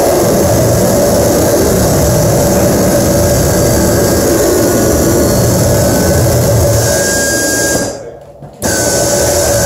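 Live band playing loud, heavily distorted music as a dense, steady wall of noise. It cuts out abruptly for under a second about eight seconds in, then comes straight back.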